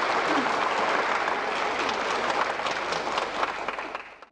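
Audience applauding, a dense clapping from many hands, fading out quickly near the end.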